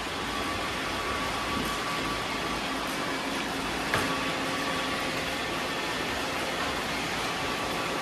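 Several robot vacuums running at once: a steady whir of their motors and brushes, with faint steady tones through it. A single sharp click about four seconds in.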